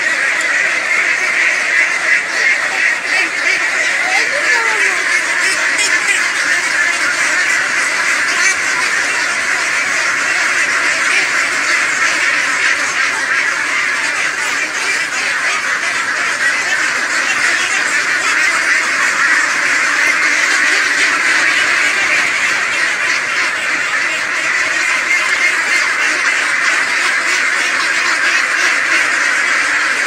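A large flock of domestic ducks quacking all at once: a dense, unbroken din of overlapping calls that stays steady throughout.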